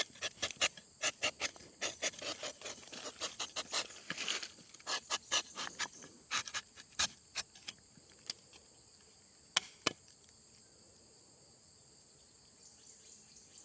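Rubber-tapping knife shaving a strip of bark from a rubber tree: a quick run of short rasping scrapes, about three a second, for the first eight seconds or so, then two sharper clicks and a stop. Crickets or other insects drone steadily throughout.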